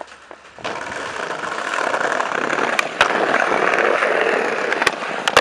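Skateboard wheels rolling over brick paving, a steady rumble that builds up about half a second in, with a few sharp clicks.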